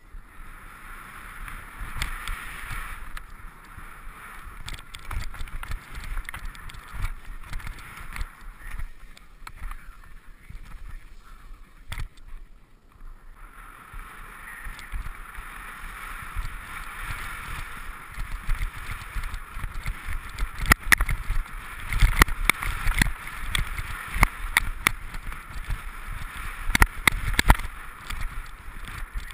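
Line powder skis hissing and scraping over snow on a downhill run, with wind rumbling on the camera and frequent sharp knocks from bumps in the snow. The hiss drops away briefly about twelve seconds in, then comes back louder and bumpier, with the knocks closest together in the second half.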